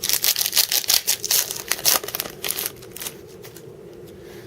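A 2013 Panini Elite football card pack being torn open, its wrapper crinkling in a dense run of crackles for about three seconds, then quieting as the cards come out.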